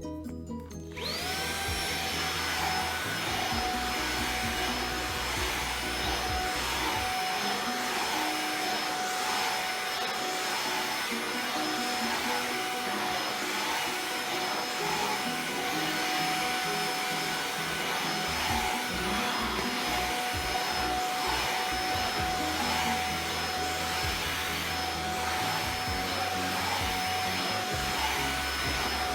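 Xiaomi Mi Handheld 1C cordless stick vacuum switched on about a second in, its motor spinning up with a rising whine, then running steadily with a high whine over the rush of air.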